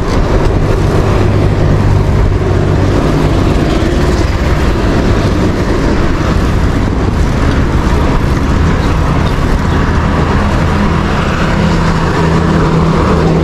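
Loud city road traffic: a steady wash of passing motor vehicles with a low engine hum, which grows stronger near the end.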